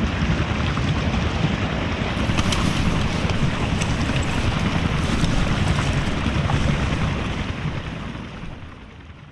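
Floodwater rushing and churning close to the microphone, heard with the camera partly underwater, with a few sharp clicks about two and a half seconds in. It fades out over the last couple of seconds.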